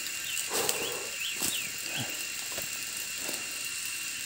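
Steady high insect drone in rural undergrowth, with a few short bird chirps about a second in and soft rustling of dry leaves and brush underfoot.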